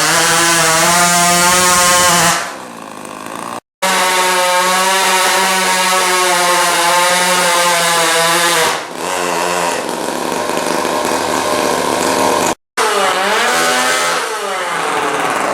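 Small RC truck engine running at high revs under load, its pitch wavering. The revs fall off a couple of times, with two abrupt cutouts, and near the end it is revved down and up again.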